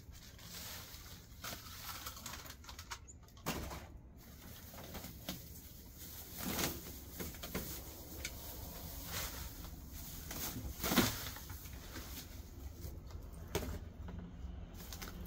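Dry cut grass and weeds rustling and crackling as they are gathered up by hand and stuffed into a plastic bag, with irregular crinkles and light knocks, the sharpest about eleven seconds in.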